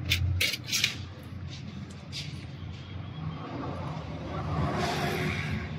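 Several light metallic clicks and clinks in the first two seconds or so as small diesel injection pump parts are handled during reassembly, over a steady low engine hum of vehicles nearby. A hiss swells up about four seconds in and fades again near the end.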